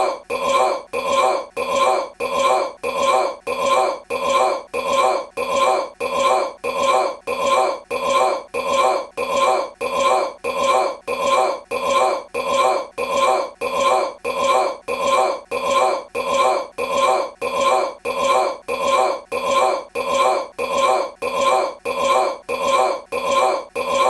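A man's short belch repeated over and over, identical each time, at about two a second.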